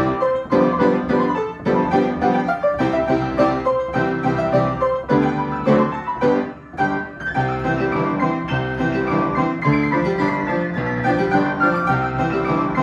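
Piano playing a piece, notes and chords struck in quick succession, with a brief drop in loudness about six and a half seconds in.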